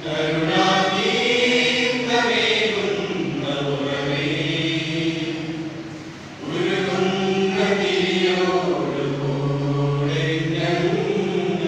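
Mixed choir of men's and women's voices singing together in long held phrases. The singing dips briefly about six seconds in between phrases, then picks up again.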